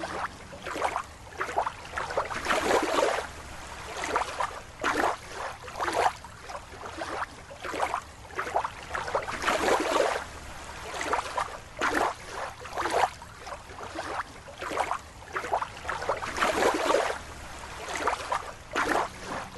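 Water sloshing and swishing in irregular surges, about one every half second to second.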